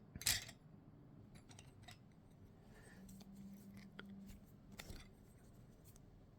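A few short, scratchy strokes of a drawing tool on the drawing surface, the loudest just after the start and others around two seconds and five seconds in. A faint low hum rises briefly in the middle.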